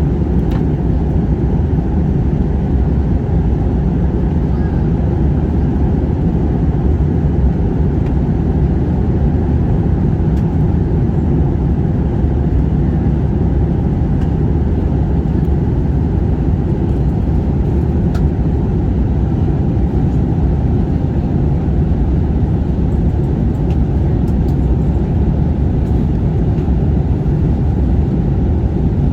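Airliner cabin noise heard from a passenger seat: the steady, even rumble of the engines and airflow in flight, with a few faint clicks.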